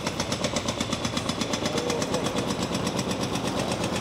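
A machine's engine running with a fast, even pulse over steady city street noise.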